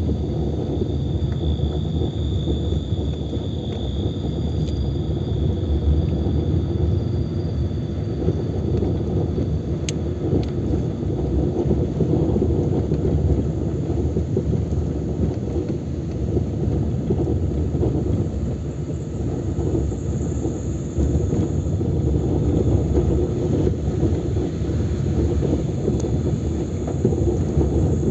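A steady low rumble runs throughout, with crickets trilling steadily on a high pitch that shifts higher after about twenty seconds.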